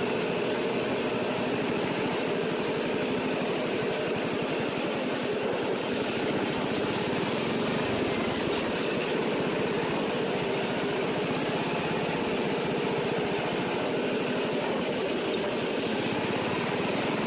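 Small lawn mower engine running steadily while the mower is driven along, with a thin steady high whine over the engine noise.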